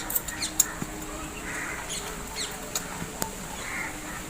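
Small birds chirping in short falling notes, among a few sharp clicks and taps.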